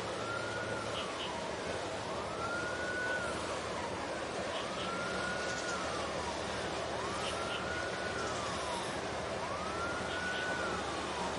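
A siren wailing in a slow repeating cycle: each call rises quickly, holds high, then slides down, about once every two and a half seconds, over a steady background hiss.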